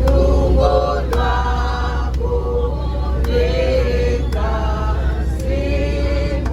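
Bus passengers singing a hymn together without instruments, over the bus engine's steady low rumble.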